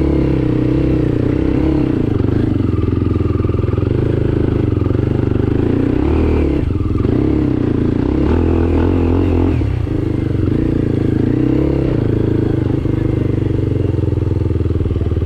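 Enduro motorcycle engine running continuously under changing throttle, its pitch rising and falling, with two brief dips: one near the middle and one about two-thirds through.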